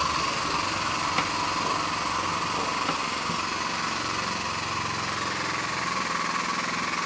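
Floor frame machine's hydraulic pump running steadily with a hissing drone, powering the tower's ram as it pulls the damaged rear of a car upward.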